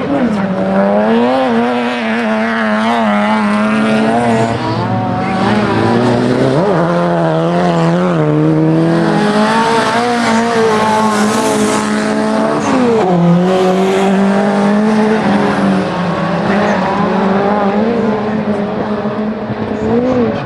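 Autocross hatchbacks' engines revving hard on a dirt track, pitch rising and falling as the drivers shift and lift into corners, with sharp drops and climbs about six and thirteen seconds in.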